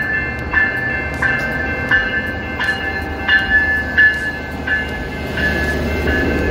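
Amtrak Midwest passenger train pulling into a station. A bell rings steadily, about three strokes every two seconds, over the low rumble of the locomotive and coaches, and the rumble grows near the end as the cars roll past.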